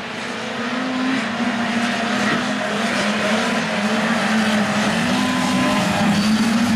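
A pack of 6x6 amphibious ATVs racing on dirt, several small engines running at once with overlapping pitches that waver up and down. The sound grows louder over the first couple of seconds as the machines approach, then holds steady.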